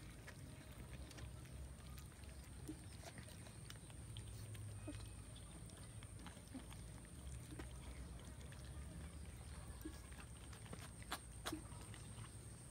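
Cats eating rice off a metal tray: faint, scattered small clicks and smacks of chewing and of teeth and paws on the tray, with a couple of sharper clicks near the end.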